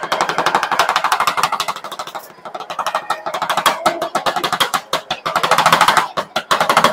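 Two steel spatulas rapidly chopping Oreo biscuits into milk on the frozen steel plate of a rolled-ice-cream pan: a fast metal-on-metal clatter of about ten strokes a second, with a few brief lulls.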